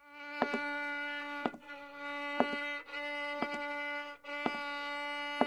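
Background music: a long held note with a sharp percussive hit about once a second, starting from silence.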